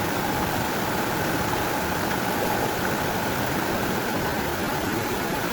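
Steady, even rushing noise with no distinct events, typical of running water or similar outdoor ambience.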